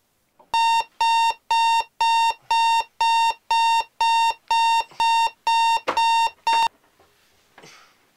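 Electronic alarm clock beeping, a high steady beep about twice a second, cutting off suddenly after about six seconds. A brief rustle follows near the end.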